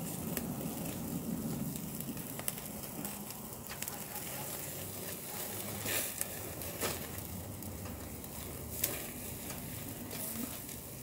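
Pork belly sizzling over a charcoal grill with flames flaring up through the grate, with a few sharp clicks and pops as steel tongs move the meat on the grate.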